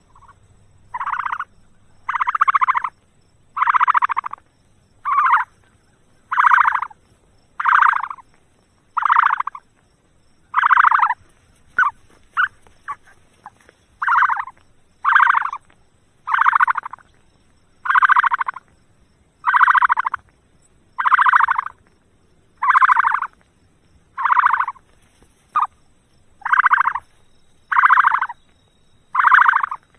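An animal calling over and over: a harsh, raspy call repeated about every second and a half, some twenty times, with a few short broken calls around the middle.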